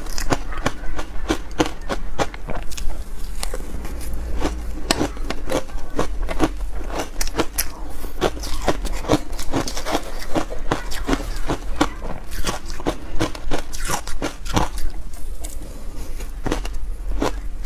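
Dense reshaped ice dusted with milk powder being bitten and chewed, close to the microphone: a rapid, continuous run of sharp crunches as the ice breaks between the teeth, over a low steady hum.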